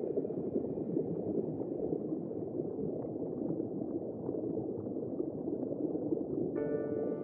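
Water bubbling and gurgling: a steady, dense, low crackle of bubbles.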